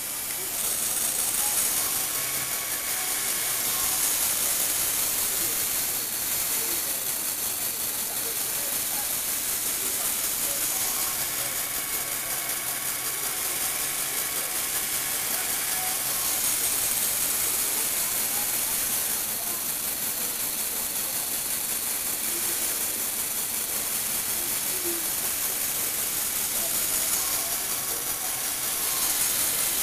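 Small electric motor driving a Lego Technic gear train and turntable, a steady whirring grind of plastic gears with a hiss, as the platform slowly rotates and tilts. A faint tone comes and goes every few seconds.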